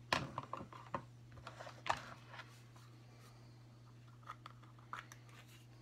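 Light clicks and taps of makeup tools and containers being handled, a quick cluster in the first two seconds and a few more near the end, over a steady low hum.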